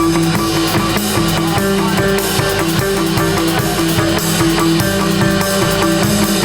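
Rock band playing live without vocals: drum kit keeping a steady beat under guitar.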